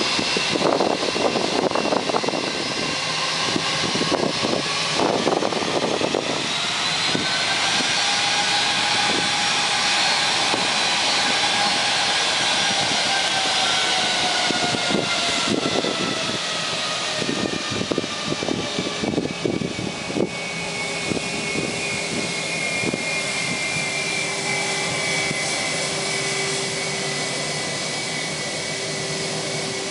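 Airbus A320 jet engines running as the airliner starts to taxi: a steady jet whine whose pitch rises and then slowly falls, with a lower steady tone in the second half. A few short rough bursts of noise break through near the start and again past the middle.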